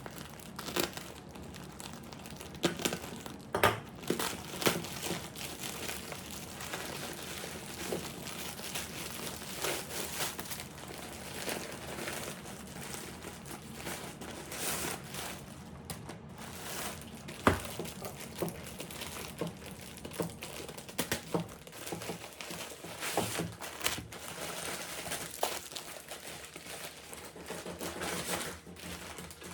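Packaging being handled and unwrapped: steady crinkling and rustling with some tearing, broken by sharp clicks and knocks, the loudest a few seconds in and just past halfway.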